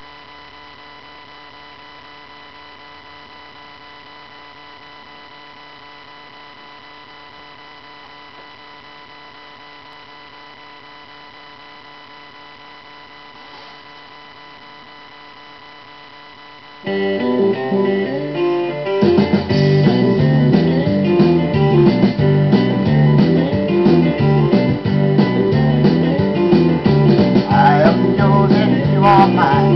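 A faint steady hum with thin high tones for about the first seventeen seconds, then guitar-led music starts suddenly, with bass joining a couple of seconds later.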